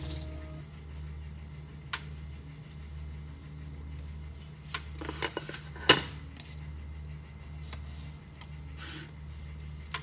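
A ceramic plate is handled and set down with a few light clicks and one sharp clatter about six seconds in, over a steady low hum.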